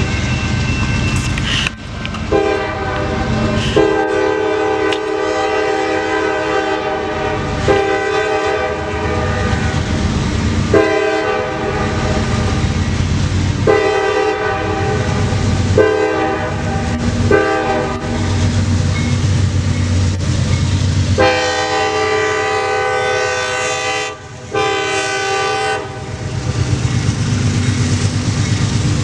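Freight train's diesel locomotive horn sounding a series of blasts, mostly long with a few shorter ones, over the steady low rumble of the locomotives and rolling train.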